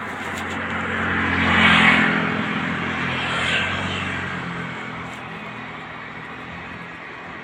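A motor vehicle passing close by. Engine hum and road noise swell to a peak about two seconds in, rise again around three and a half seconds, then fade away.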